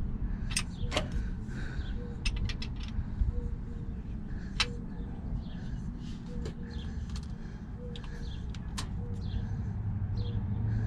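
Scattered sharp metal clicks and taps of hand tools and brass air-line fittings being worked on the underside of a truck, over a steady low background rumble.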